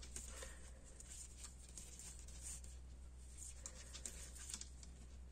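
Knitting needles clicking lightly and yarn rubbing as four purl stitches are worked: faint scattered ticks and soft scratching over a steady low hum.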